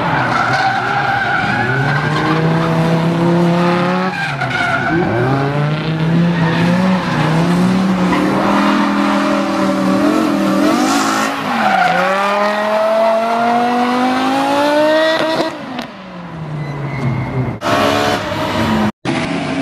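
Engine-swapped Subaru Impreza coupe drifting. The engine revs climb and fall again and again, with sudden drops in revs, and its tyres squeal as they slide. The sound breaks off briefly near the end.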